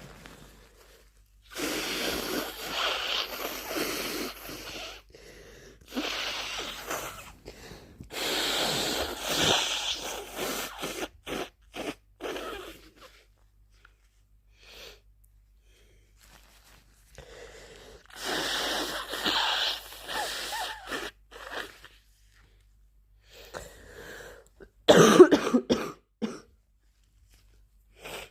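A person with the flu coughing and sneezing in several bouts of a few seconds each, with quiet gaps between them; the loudest burst is short and sharp, near the end.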